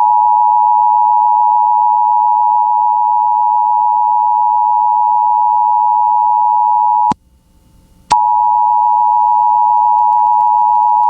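Emergency Alert System attention signal: the steady two-tone alarm (853 and 960 Hz sounded together) that announces an emergency broadcast, here a severe thunderstorm warning on FM radio. It breaks off for about a second a little past the middle, with a click as it stops and another as it resumes.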